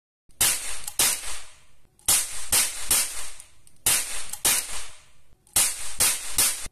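Toy revolver cap gun firing red plastic ring caps: about ten sharp pops in quick clusters of two or three, each followed by a short ringing tail.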